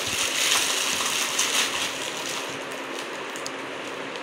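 Clear plastic packaging crinkling and rustling as an orange collar is pulled out of its bag, louder for the first couple of seconds and then a softer rustle.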